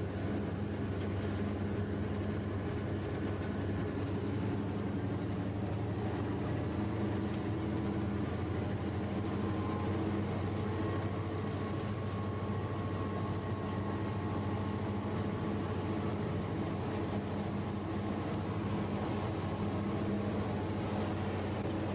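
GP diesel-electric locomotive's engine running at full throttle in notch 8 as a helper: a steady low drone that holds at one pitch, with a faint higher whine joining about halfway through.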